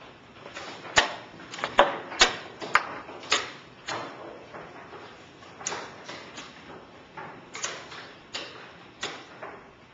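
An irregular series of sharp clicks and taps from chess pieces being set down on the board during a blitz game. Several come close together in the first few seconds, the loudest about a second in, then they come more sparsely.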